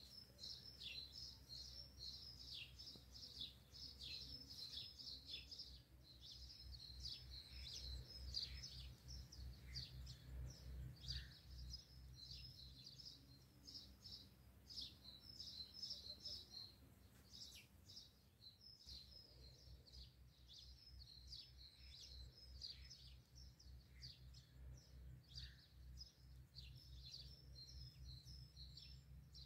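Faint chorus of small birds chirping and twittering without a break, many short calls overlapping, over a low steady hum.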